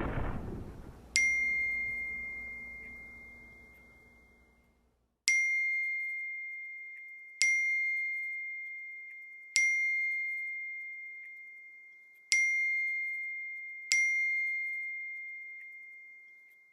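Phone message notification dings: six single-pitch pings at uneven spacing, each ringing out and fading slowly. A low rumble dies away at the very start.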